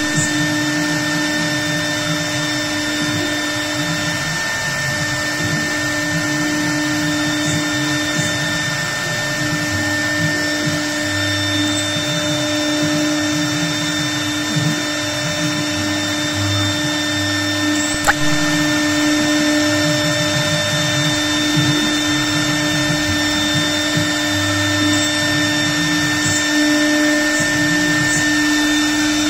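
TigerTec CNC router spindle running with a steady whine while its bit engraves an aluminium composite panel, over a lower sound that shifts as the head moves. A single brief click about eighteen seconds in.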